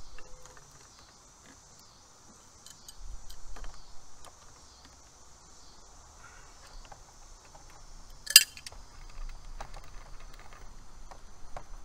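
An adjustable wrench working a brass flare nut loose on a copper refrigerant line: a few faint metal clicks, and one sharp metallic clack about two-thirds of the way in.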